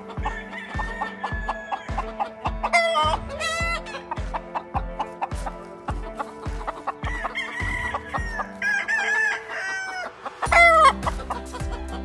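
Gamefowl roosters crowing several times, the loudest crow near the end, over background music with a steady beat of about two a second.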